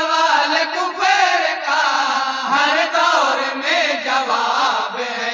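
Men of an anjuman group singing an Urdu naat into a microphone in a drawn-out, wavering melody, several voices overlapping.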